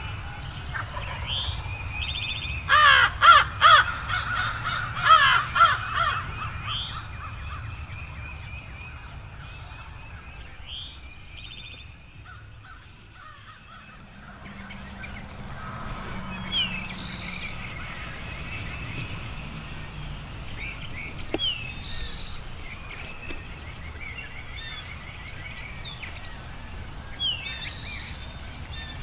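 Crows cawing, a few harsh calls in quick succession about three seconds in and again about five seconds in, over a morning chorus of small songbirds chirping and trilling.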